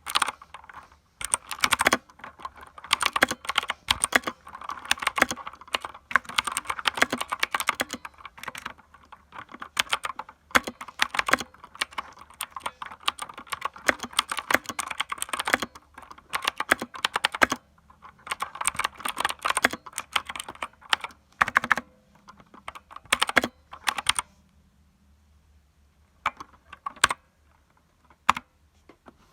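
Mechanical keyboard being typed on in fast bursts of sharp clacks that sound like a typewriter. The typing stops a little past two-thirds of the way in, leaving only a few separate keystrokes near the end.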